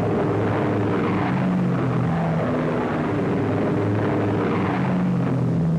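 Several WWII piston-engine fighter planes flying low at full power: a steady, loud engine drone whose pitch shifts a little as the planes pass.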